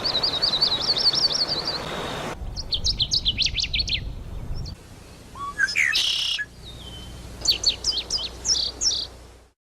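Songbirds chirping and calling in several short passages that change abruptly from one to the next: a fast run of high trilled chirps, then a series of sharp down-slurred notes, a single rising call, and more quick chirps before the sound cuts off near the end.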